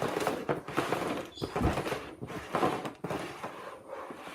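Cups sliding and knocking on a tabletop as they are shuffled, a quick run of irregular scrapes and taps.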